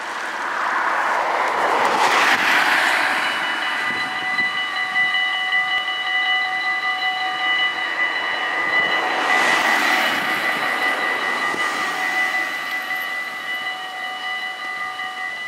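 Level-crossing warning bells start ringing about three seconds in and keep ringing steadily as the half-barriers come down, signalling an approaching train. Cars pass close by twice, about two seconds in and again near ten seconds.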